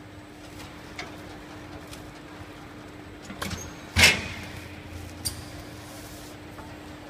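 L-sealer shrink-wrapping machine: a steady hum with light clicks and plastic film handling, then a loud clack from the sealing frame about four seconds in, followed by a low rumble for about a second and a half.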